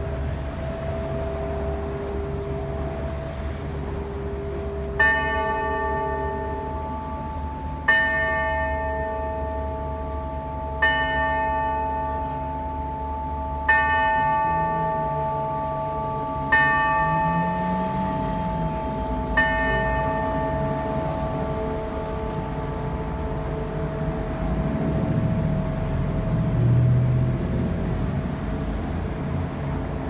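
Wako clock tower bell striking the hour six times, about three seconds apart, for six o'clock; each stroke rings on and fades slowly. A chime tone is already ringing before the first stroke, and city traffic hums underneath.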